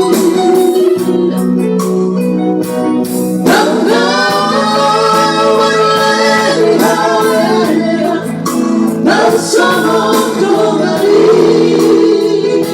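A song: a singing voice over instrumental backing music, the voice coming in about three and a half seconds in after a short instrumental passage.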